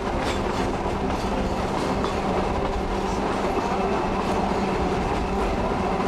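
Vintage electric trolley car running along its track, heard from inside the car: a steady rumble of wheels on rails with a low hum and a few faint clicks.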